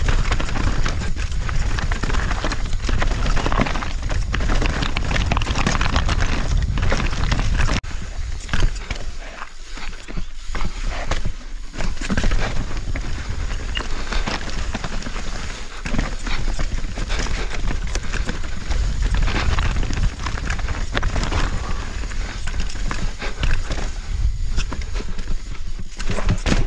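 Orbea mountain bike ridden fast down a rough trail: tyres on rock and dirt, with many knocks and rattles over the bumps, over a constant rumble of wind on the camera microphone.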